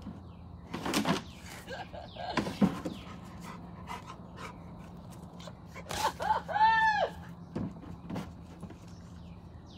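Dog panting, with scattered clicks and knocks of movement and a short high call that rises and falls about six and a half seconds in.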